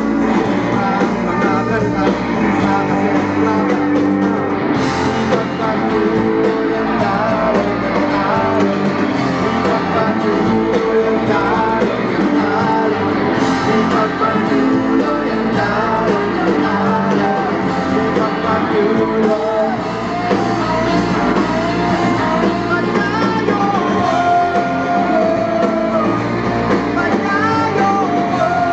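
Live rock band playing loud and without a break: electric guitars and a drum kit under a lead singer.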